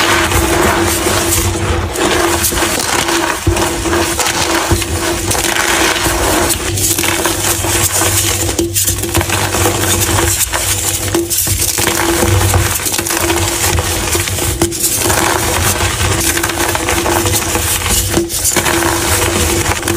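Blocks of gym chalk being crushed: continuous dense crunching and crumbling, broken by a few brief pauses.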